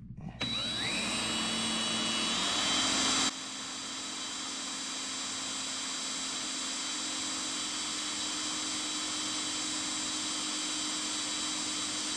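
DeWalt 20V cordless drill with a 1/8-inch bit spinning up about half a second in, its whine rising in pitch, then running at a steady speed while drilling a small hole in the metal guide of a tractor steering cylinder to reach the snap ring behind it. The level drops suddenly about three seconds in, then the steady whine carries on.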